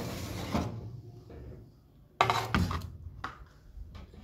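Metal baking tray of biscuits being pulled out of the oven: a short sliding scrape, then a few sharp clunks of the tray from about two seconds in.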